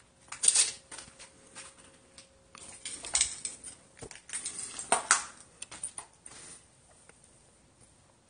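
Footsteps crunching and scraping over broken debris and grit on a concrete floor, in uneven bursts with a few sharp clicks.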